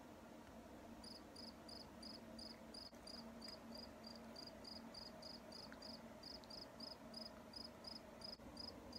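Crickets chirping, a steady run of short high chirps about three a second starting about a second in, over otherwise near silence: the comic 'crickets' effect marking an awkward silence when nobody answers.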